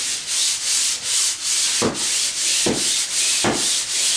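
Sanding pole with a swivel head rasping sandpaper back and forth across a drywall ceiling in quick, even strokes, scuffing the last remnants of popcorn texture off the old discoloured sheetrock. A dull knock comes a little more than once a second.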